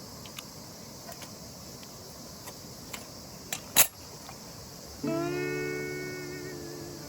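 A few faint sharp clicks over a steady high hiss, then about five seconds in a slide guitar comes in as background music: a plucked note that slides up and rings on, slowly fading.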